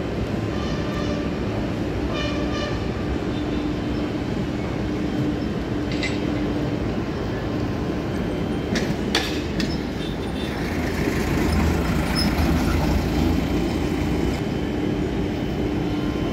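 Dockside cargo-handling machinery, a ship's deck crane winches and trucks' diesel engines, running as a steady mechanical drone. A few sharp metallic clanks come about nine seconds in, and a deeper engine rumble swells a little after that.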